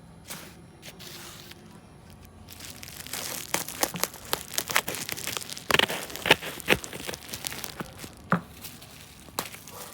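Packaging being unwrapped by hand: a few seconds of quiet, then dense crinkling and tearing with sharp crackles, loudest a little past the middle.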